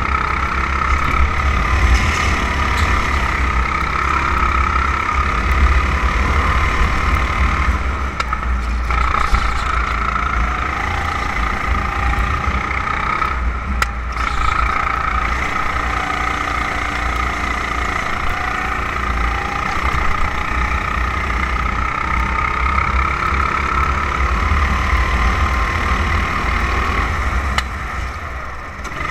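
270cc kart engine running at speed, heard from onboard the kart, its pitch rising and falling gently through the corners, with a strong low rumble underneath.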